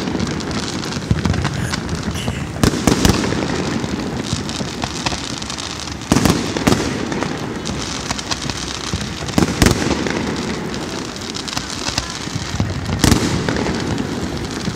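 A fireworks display going off without a break: a continuous crackling hiss of shells and fountains, with sharp bangs of bursting shells every three to four seconds.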